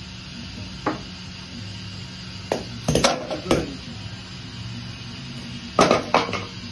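Metal tools and parts clanking and clinking as a mechanic works under a van: one knock about a second in, a cluster of clanks around three seconds, and another cluster near the end.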